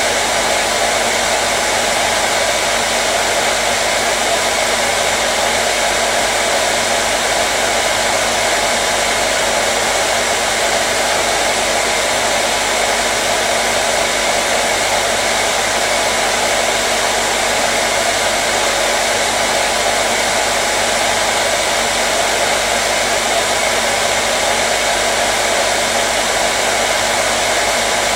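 Hair dryer running continuously: a steady, even rushing of blown air with a faint motor hum underneath, unchanging throughout.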